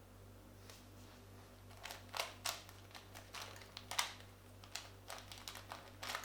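Plastic Rubik's cube being twisted by hand: an irregular run of clicks and short scraping clacks as its layers are turned, starting about two seconds in.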